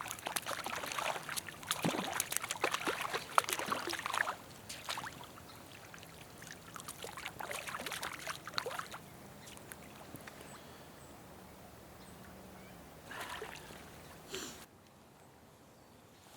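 River water splashing in irregular bursts as a hooked trout is landed and handled in the shallows, heaviest in the first few seconds, again about halfway through and briefly near the end, where it cuts off suddenly.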